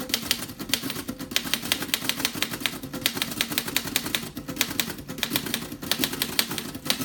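Typing on a 1951 Erika Model 8 manual typewriter: a quick, steady run of typebars striking its newly replaced platen, several keystrokes a second, with a few brief pauses between words.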